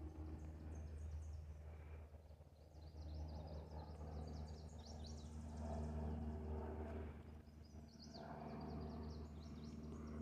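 Small songbirds chirping and trilling in short repeated phrases, over a steady low hum.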